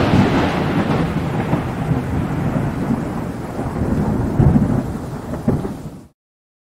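Thunder rumbling on, with a sharper crack about five and a half seconds in. It cuts off abruptly about six seconds in.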